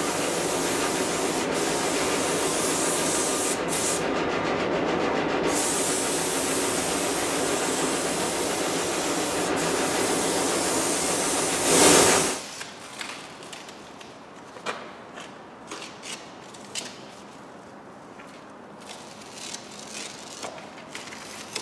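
A paint spray gun hissing steadily over the low hum of the booth's ventilation. It swells to its loudest just before it cuts off about halfway through. After that come quieter rustling and crackling as masking tape and foam masking strips are peeled off the car's door edges.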